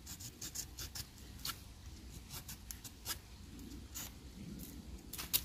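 The small saw blade of a Ruike LD42B multitool knife cutting into a thin broken sapling with push-and-pull strokes, heard as a run of irregular sharp ticks.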